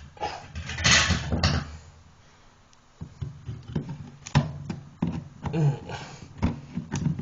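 Handling noises from working on toilet parts: a brief scraping hiss about a second in, then a series of scattered clicks and knocks.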